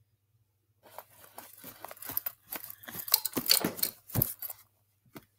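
Cloth rustling and scraping close to the microphone as a fabric puppet is handled, a dense crackly run of rustles starting about a second in and lasting about four seconds, loudest in the middle, with one more brief rustle near the end.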